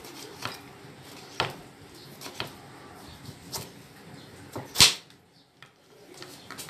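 Kitchen knife slicing a cucumber into batons on a wooden chopping board: separate, irregular knocks of the blade reaching the board, about one a second, the loudest near the end.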